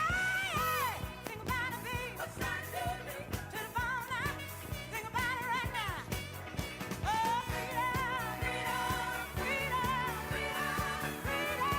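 Pop music playing: a wavering lead melody over a steady beat and bass.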